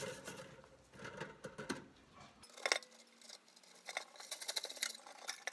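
Wire brush scrubbing burnt creosote and soot off the top edge of a bee smoker: short, irregular rasping strokes with scattered sharp clicks of bristles and metal.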